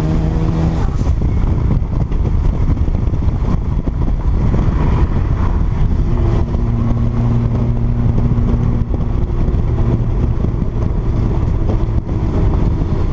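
Car engine and road noise heard from inside the cabin while driving at speed, loud and steady, with a steady engine hum standing out from about six to nine seconds in.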